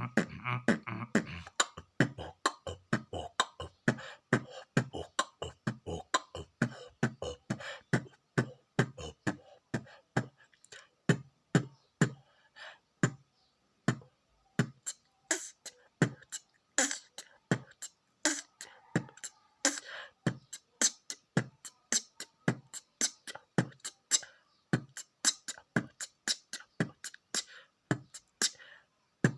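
Beatboxing: a person imitating a drum kit with the mouth, in a fast run of sharp strokes, deep kick-like thumps alternating with higher snare- and hi-hat-like clicks. A low hummed tone runs under the strokes for the first second or so.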